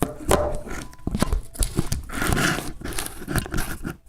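Close handling noise: a busy run of knocks, clicks and rustling as things are moved about near the microphone.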